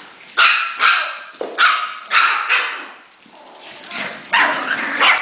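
Havanese puppies barking and yipping as they play-fight, a string of short high barks in quick succession, a brief lull, then more barks near the end.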